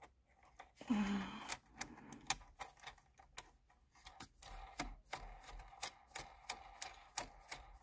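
A ratchet clicking as the steering wheel's centre bolt is run down onto the steering column. The clicks are sparse at first, then from about halfway come in a fairly even run of about three or four a second.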